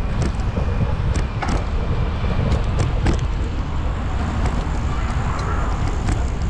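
Wind buffeting the microphone of a GoPro carried on a moving bicycle, a steady low rumble, with a few sharp clicks and rattles scattered through it.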